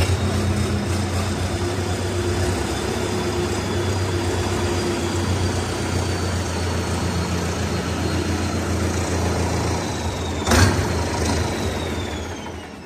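A vehicle engine running steadily, with a faint high whine above it that slowly drops in pitch. There is a single sharp knock about ten and a half seconds in, and the engine sound dies away near the end.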